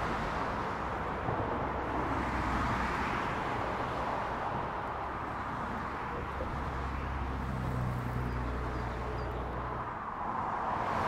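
Steady outdoor town ambience: an even hiss of distant road traffic with a low hum underneath.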